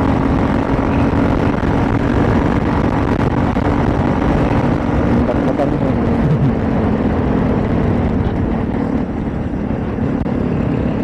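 Motorcycle riding at a steady cruise: a constant engine hum under heavy wind rush.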